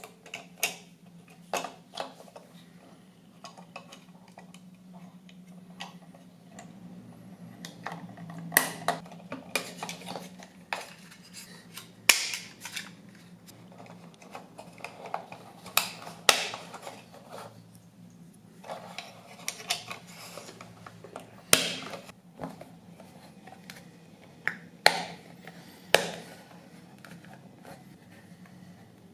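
Irregular sharp clicks, knocks and short scrapes of small tools and hard parts being handled on a work surface, over a low steady hum.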